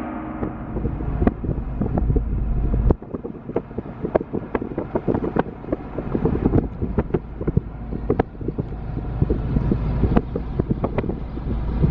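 A large flock of small birds calling densely all at once, many short sharp chirps overlapping, mixed with wind rumbling on the microphone.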